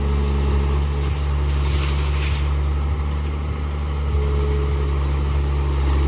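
Diesel engine of heavy construction machinery running steadily at a low hum, with a short hiss about two seconds in.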